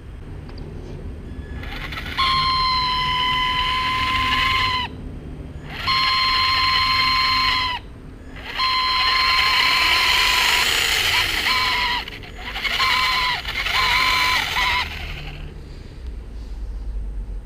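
Traxxas Slash 2WD's 550 12-turn brushed motor run in four bursts of two to three seconds each, every burst giving a high, steady squeal over a low hum; this is the squeak the motor needs fixing for.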